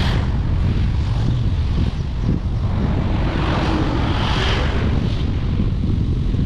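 Steady rushing wind and low rumble from a vehicle on the move, with wind buffeting the microphone.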